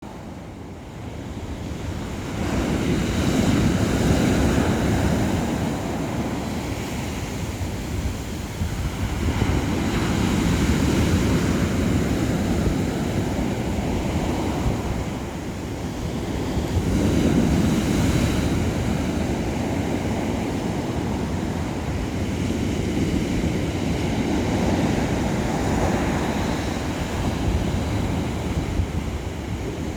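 Sea waves washing onto the shore, fading in over the first couple of seconds, then surging and ebbing about every seven seconds, with wind on the microphone.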